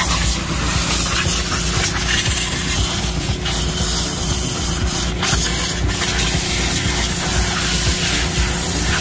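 Hissing jet from a hand-held detailing wand blasting the car's center console, with a towel rubbing over the surface.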